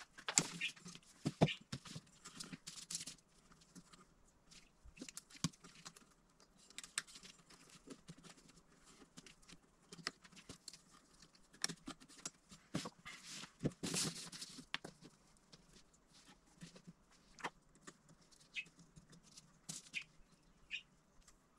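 Hands routing cables along a laser engraver's metal frame: irregular clicks, taps and rustles of wires and small plastic parts being handled, with a longer rustling burst about two-thirds of the way through.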